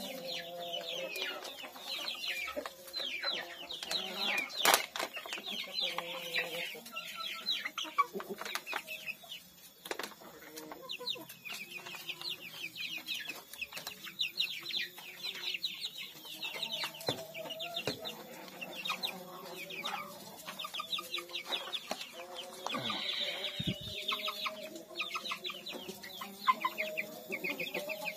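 A flock of young kampung chickens clucking and peeping without pause, many short high peeps over lower clucks. There is one sharp click about five seconds in.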